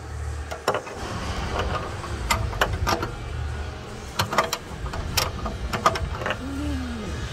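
Sharp metallic clinks and knocks of a 22 mm combination wrench against bolts and brackets under the car, a dozen or so in irregular quick succession, as it is worked to remove the downstream oxygen sensor. A low rumble runs underneath.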